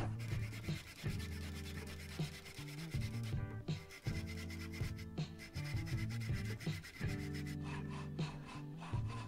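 Pull saw cutting a pine board by hand, rasping back-and-forth strokes with a short pause about three and a half seconds in, over background music.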